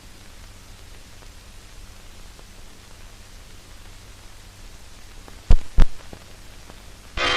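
Steady hiss and low hum of an old 1940s optical film soundtrack. About five and a half seconds in come two sharp, loud thumps close together, and near the end brass-led orchestral music starts.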